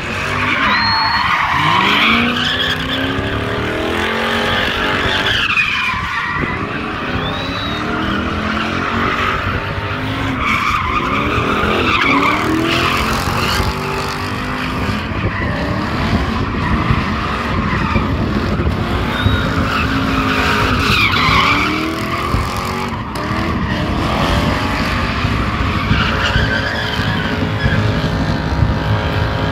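A car doing donuts: its tyres squeal and skid without a break while the engine revs up and falls back again and again, every few seconds.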